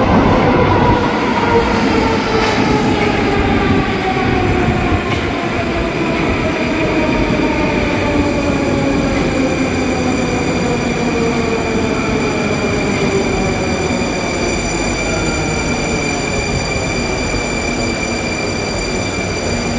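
Moscow metro train pulling into a station and slowing, its motor and gear whine falling steadily in pitch over the rumble of the wheels. A steady high-pitched squeal joins in about halfway through.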